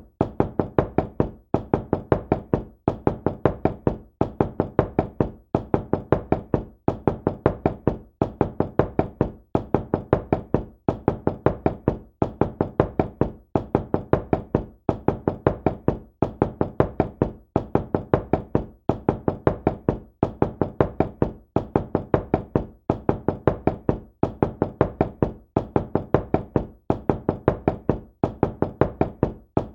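Knocking on a door: quick runs of several raps, repeated over and over with a short pause about every one and a half seconds.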